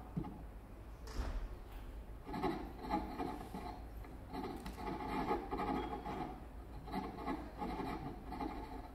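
Experimental live-electronic music: rough rubbing and scraping sounds in uneven pulsing bursts.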